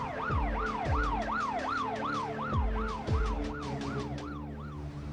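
Police siren in fast yelp mode, its pitch rising and falling about two and a half times a second before fading out near the end, with a few deep swooshes underneath.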